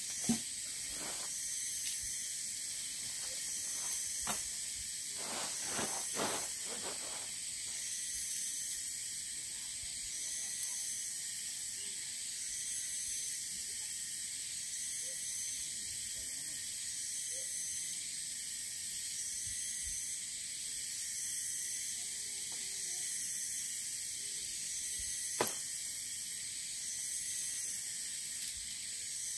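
A steady, high-pitched insect chorus of crickets and other night insects, with nylon tent fabric rustling and flapping several times in the first seven seconds as it is shaken out and spread over a tarp. A single sharp click comes about 25 seconds in.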